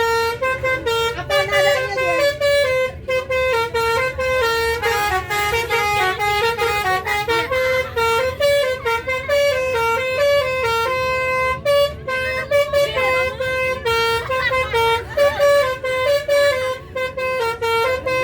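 A bus's basuri telolet horn playing a quick tune of stepped notes that keep changing pitch every fraction of a second, over a low rumble.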